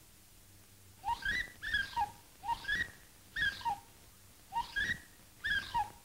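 Frightened whimpering: short whiny cries, mostly in pairs, repeating about once a second, starting about a second in.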